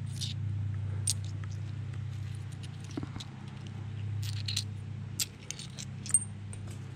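Stone flakes and a small flint arrowhead clinking against each other in a hand: a scatter of sharp clicks, the loudest about six seconds in, over a steady low hum.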